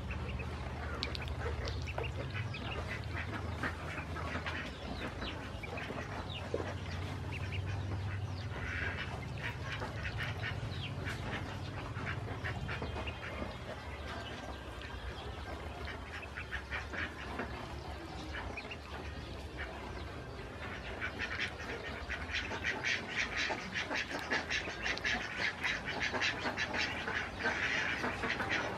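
A brood of ducklings peeping and pecking at food. About two-thirds of the way through, their bills start a fast run of clicks and dabbling that grows louder and denser.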